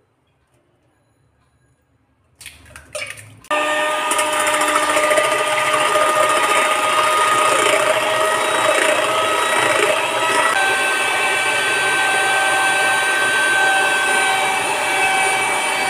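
Electric hand mixer beating eggs in a steel bowl: after a few brief knocks it starts about three and a half seconds in and runs steadily with a motor whine and the beaters churning. Its whine steps up in pitch about ten seconds in.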